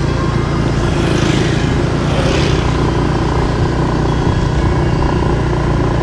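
Steady low rumble of a moving road vehicle, engine and road noise together, with a short hissing swell about one to two seconds in.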